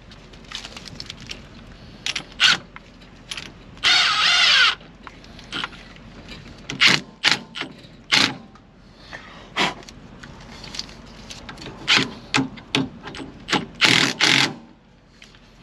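Metal hand tools clinking and knocking against fasteners while bolts are tightened, with one short, denser burst from a tool about four seconds in.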